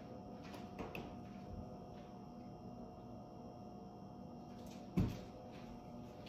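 Quiet kitchen with a faint steady hum, a few light clicks about a second in, and a single knock about five seconds in from a cupboard door being shut.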